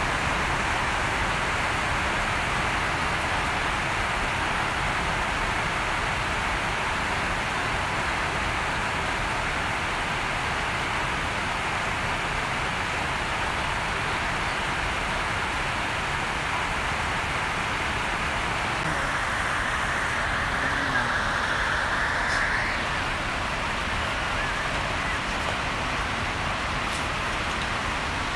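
Steady, even hiss of background noise, with a slight swell about twenty seconds in.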